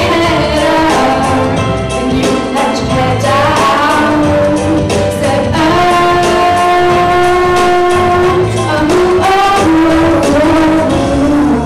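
A girl sings a pop song into a microphone over a recorded backing track with a steady beat, amplified through the PA, holding one long note about halfway through.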